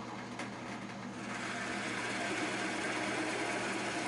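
Oliver 10063 floor drill press running, its 1-1/2 HP motor humming steadily; about a second in, the bit starts boring into a block of wood and a cutting hiss rises over the hum and holds.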